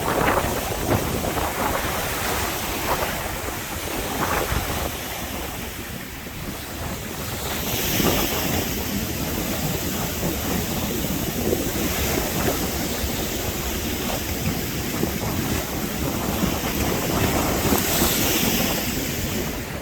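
Wind rushing over the microphone, with no speech, swelling louder about eight seconds in and again near the end.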